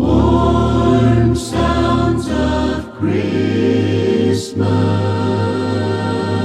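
Vocal choir singing long held chords, with a new chord coming in about three seconds in.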